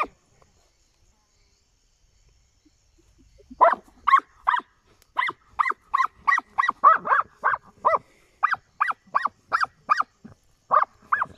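A dog barking in a fast, steady run of about three barks a second, starting about three and a half seconds in: a hunting dog barking at an armadillo holed up in its burrow.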